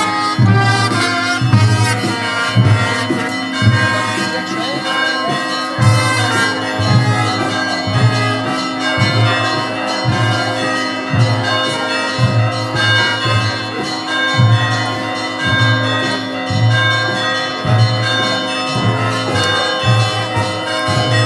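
Church bells ringing continuously in a peal for a saint's-day litany procession, their notes held and overlapping, with a deep note pulsing about once a second underneath.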